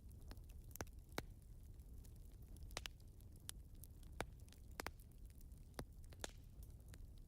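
Fireplace crackling: irregular sharp pops and snaps, about a dozen, over a faint low rumble.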